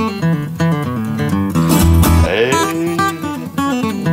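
Music: a song led by strummed acoustic guitar over a deep bass line.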